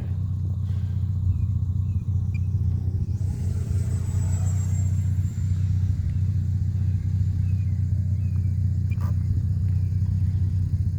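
A steady low rumble carries through, with the faint high whine of a 64 mm electric-ducted-fan RC jet, an Arrows F-86 Sabre, in flight, dropping slightly in pitch a few seconds in as it passes.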